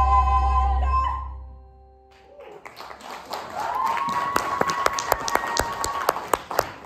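A sung stage number ends on a held note over its accompaniment, which stops about a second in. After a brief lull, audience applause builds, with a long, high, held cheer rising above the clapping.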